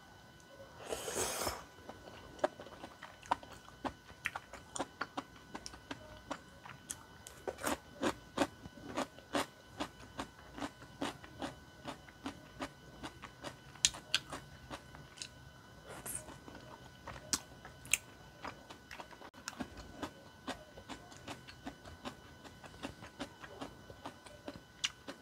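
Close-miked chewing of tteokbokki rice cakes and noodles, with many irregular wet mouth clicks and smacks. A short slurp comes about a second in as a mouthful of saucy noodles is sucked in.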